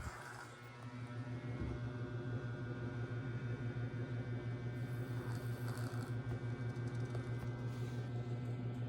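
A cat making a low, steady rumble with a fast flutter, which the title calls snoring; it grows a little louder after about a second.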